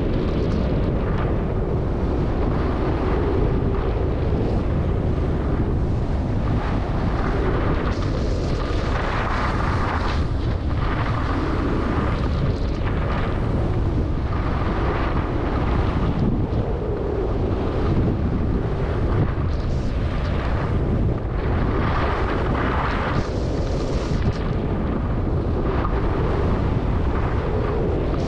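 Heavy wind rumble on the microphone during a downhill ski run, with the hiss and scrape of skis on packed snow swelling and fading every second or two as the skier turns.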